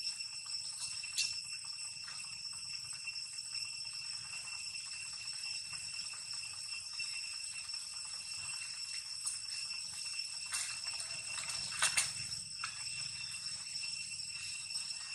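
Steady high-pitched insect drone, several thin pitches held together without a break, with a few soft clicks and rustles, the loudest about twelve seconds in.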